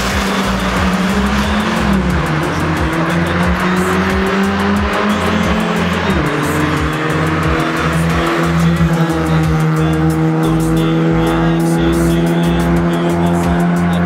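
Two classic Lada cars, a VAZ 2101 and a VAZ 2106, launching in a street drag race with their four-cylinder engines at full throttle. The tyres squeal at the start, and the engine note climbs, then drops back as the car shifts up, about two and again about six seconds in. A music track with a steady bass beat runs underneath.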